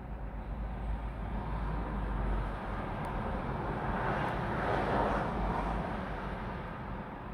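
Cars driving past on a road, their tyre and engine noise swelling and fading, loudest about five seconds in as SUVs go by, heard from inside a stationary car. A steady low rumble runs underneath.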